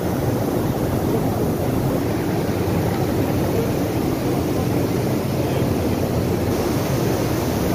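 Steady low rushing roar of large air-cooler fans mixed with general exhibition-hall noise, even throughout with no distinct events.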